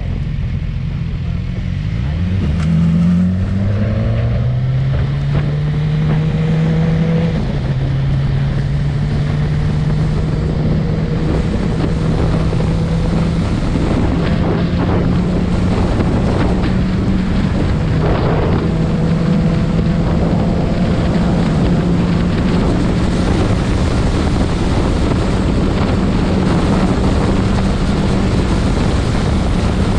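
Motorcycle engine accelerating with rising pitch, shifting up about seven seconds in, then cruising steadily at road speed. Heavy wind rush on the microphone throughout.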